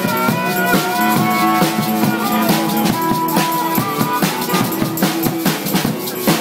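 A live rock band playing: a steady drum beat under long held guitar notes.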